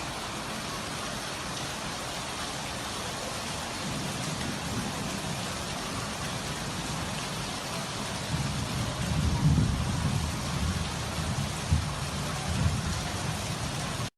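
Heavy rain pouring in a steady hiss, with a low rumble that swells in the second half.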